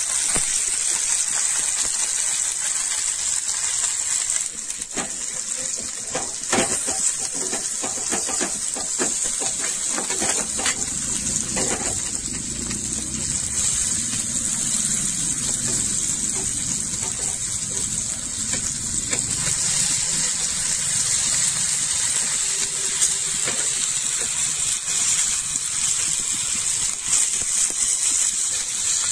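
Okra sizzling in oil on a flat griddle pan, a steady high hiss. A metal spatula scrapes and taps on the pan several times between about five and twelve seconds in.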